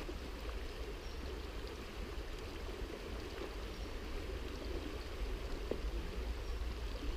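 Small woodland river flowing steadily over a shallow riffle, a continuous rushing and babbling of water, with a low steady rumble underneath.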